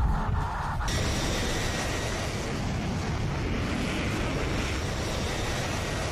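Jet aircraft flying low and fast: a steady rushing noise of the jet, fuller from about a second in.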